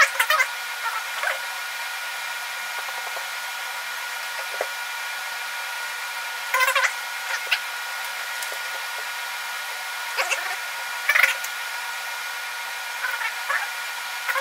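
A steady whirring hiss with a few faint steady tones in it, broken several times by brief sharp sounds.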